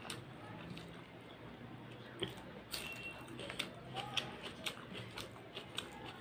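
Close-up chewing of rice and spicy mutton curry: wet, squishy mouth sounds with frequent short lip smacks and clicks.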